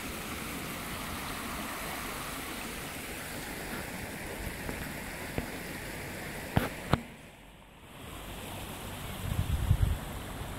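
A small stream running, a steady rush of water that fades about seven seconds in. Two sharp clicks come just before it fades, and wind buffets the microphone near the end.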